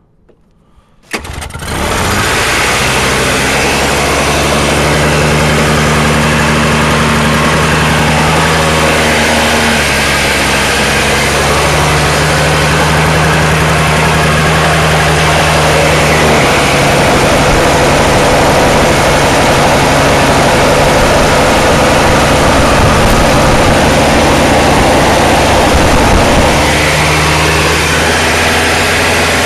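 Toro two-stroke snowblower engine pull-started from cold with the choke out, catching about a second in and then running loudly and steadily. Its speed shifts a few times, from an engine the owner says has a governor fault that keeps it from idling properly.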